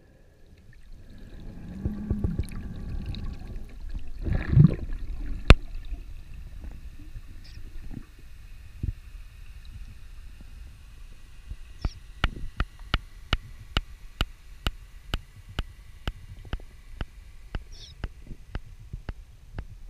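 Underwater sound picked up by a spearfisher's camera in freshwater: water rushing and bubbling around the diver in the first few seconds, with a loud thump and a sharp click about five seconds in. Over the last eight seconds a regular sharp ticking comes about twice a second.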